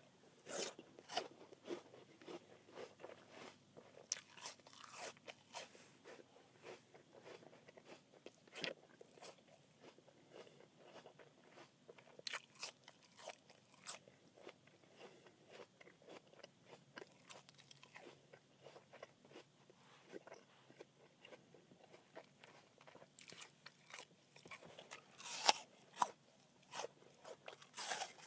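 A crisp apple being chewed: a continuous run of short crunches, with a few louder crunches near the end.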